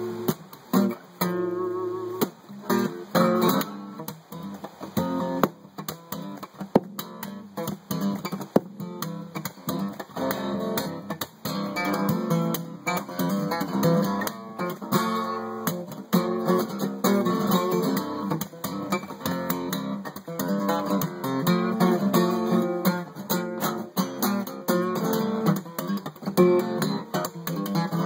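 Instrumental break of a song: acoustic guitar strummed and picked in a steady rhythm, without vocals.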